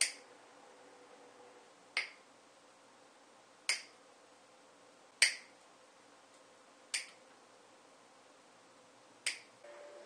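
Six sharp plastic clicks, one every second or two: black zip ties holding copper tubing to a box-fan grille having their tails snipped off with cutters.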